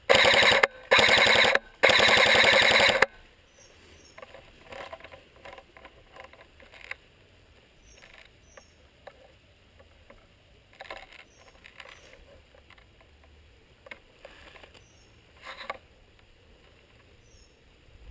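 Three bursts of full-auto fire from an airsoft electric gun, the last the longest, each a fast, even rattle of shots; soft clicks and rustles follow.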